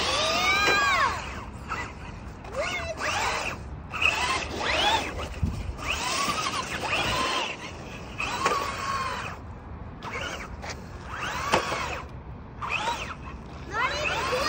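Electric RC car's motor whining in short throttle bursts, its pitch rising and falling with each burst, about nine times.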